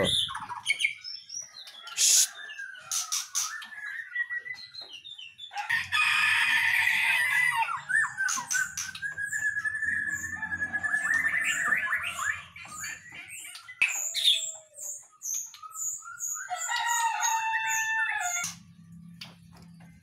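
Caged songbird singing a varied run of short chirps, whistles and gliding notes. About six seconds in there is a loud two-second burst of noise over a low steady hum, and a longer call with several stacked tones comes near the end.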